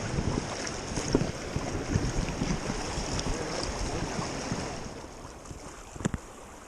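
Creek water rushing and splashing, with a few scattered light knocks; it quietens about two-thirds of the way through.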